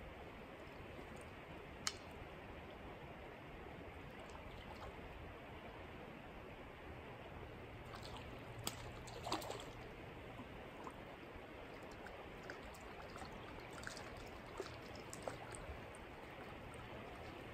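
Creek water flowing steadily, faint, with a few scattered sharp ticks, the loudest cluster about nine seconds in.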